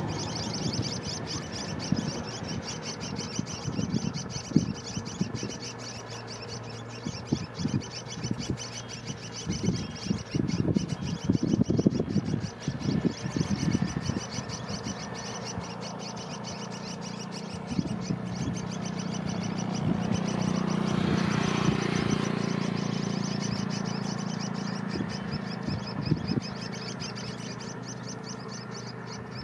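Juvenile tricoloured munias giving high, thin begging calls in a continuous rapid chatter. Low knocks in the first half, and a low hum that swells and fades around the middle.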